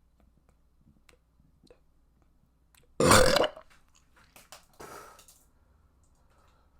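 A person burps loudly once about three seconds in, a short burst of about half a second. A fainter, breathy sound follows about a second and a half later, with small clicks before and after.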